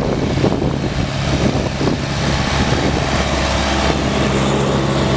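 Antique farm tractor engines running as a line of tractors drives past on a paved road, a steady low engine note with no change in speed.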